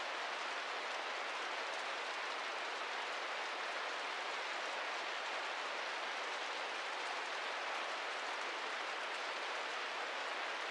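Steady rain falling, an even hiss with no single drops or strokes standing out.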